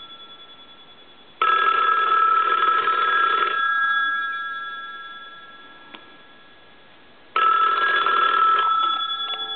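A wooden wall telephone's twin bell gongs ringing twice, about two seconds per ring with a pause of about four seconds between, each ring fading away after it stops. This is the ringer test on the repaired phone, and the ringer is working.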